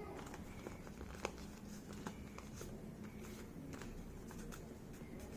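Faint rustling and light creasing of folding paper as an origami bird is handled and shaped, with scattered small ticks and one sharper tick about a second in.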